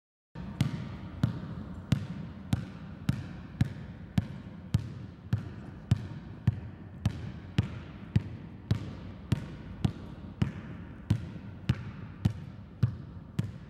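A basketball dribbled steadily with one hand on a hardwood gym floor, a little under two bounces a second, each bounce echoing in the large hall. It starts about half a second in.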